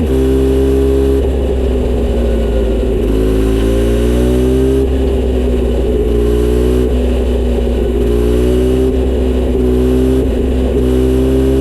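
Kawasaki Z900RS inline-four engine running through a short aftermarket Misty Kintaro exhaust. The engine note is continuous and loud, holding steady, rising slowly in places and stepping in pitch several times.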